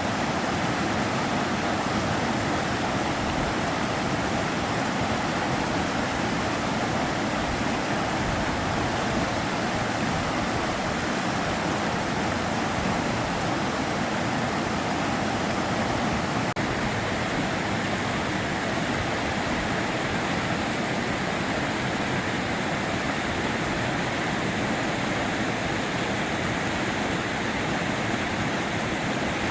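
River water flowing over stones, a steady rushing with no change in level.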